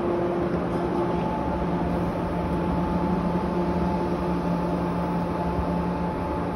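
A JR West 103 series 3500 electric train standing at the platform, humming steadily with several held tones from its running onboard equipment.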